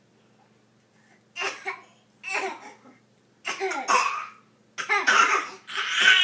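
After about a second of quiet, coughing and laughter come in four bursts, each louder and longer than the last.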